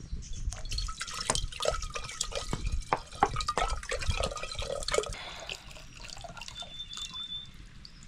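Water dripping and splashing with quick small knocks for about five seconds, then quieter.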